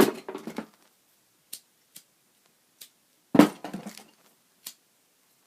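Plastic lighters clattering against each other as a hand rummages through a box of them: two loud bursts of clatter about three seconds apart, with a few single light clicks in between.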